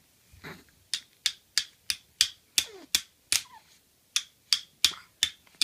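Plastic toy hammer tapping a toy nail into plastic pieces: about a dozen sharp clacks, roughly three a second, with a short pause past the middle.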